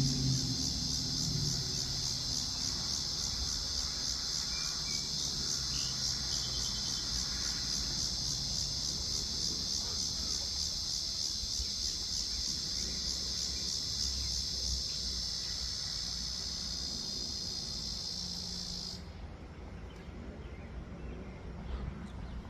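Insects trilling: a steady high-pitched, rapidly pulsing buzz that stops abruptly near the end.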